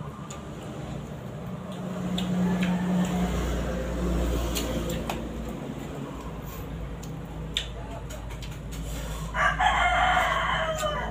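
A rooster crowing once, near the end, loud and lasting about a second and a half, over a steady low rumble.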